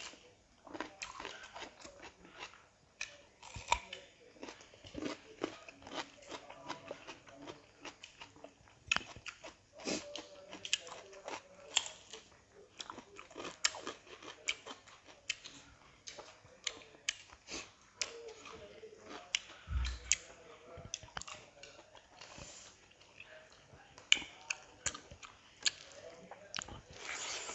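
Close-miked chewing and biting as two people eat by hand, with many short crunches and wet mouth clicks from bites of raw cucumber and boiled pork with rice. A dull low thump sounds about twenty seconds in.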